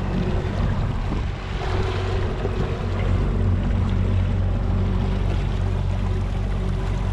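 Yamaha V MAX SHO 250 V6 four-stroke outboard running steadily with the boat underway, a constant low engine hum. Wake water and wind noise run over it.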